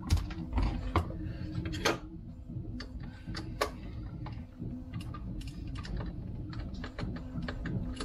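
Irregular sharp plastic clicks and taps as the RC car's transmission cover is fitted back on, over a steady low hum.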